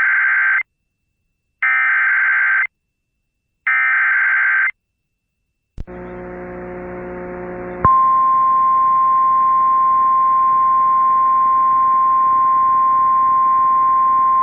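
Emergency Alert System SAME header: three one-second bursts of warbling digital data tones, about a second apart. After a click and a couple of seconds of low hiss with hum, the steady single-pitch 1050 Hz weather-radio warning alarm tone comes on about eight seconds in; it is the attention signal that opens a severe thunderstorm warning.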